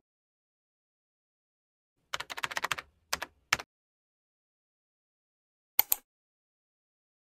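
Computer keyboard typing sound effect: after about two seconds of silence, a quick run of key clicks, then two single clicks, and one sharper click near the end.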